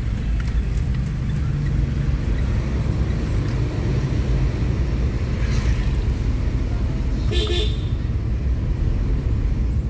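Steady low engine and road rumble heard inside a moving car, with one short horn toot about seven seconds in.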